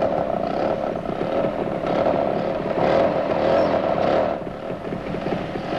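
A motor vehicle's engine running steadily, its level dipping a little about four seconds in.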